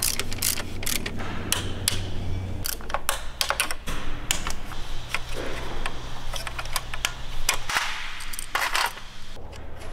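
Hand-tool work on an engine: a socket ratchet clicking as bolts are run, and metal parts clinking and rattling, in irregular sharp clicks over a low steady hum.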